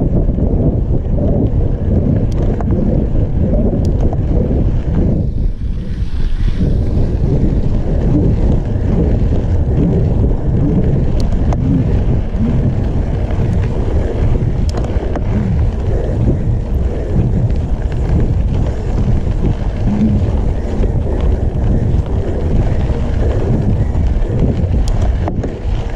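Heavy wind buffeting the microphone as a mountain bike rolls down a dirt road, a steady low rumble with a few faint clicks.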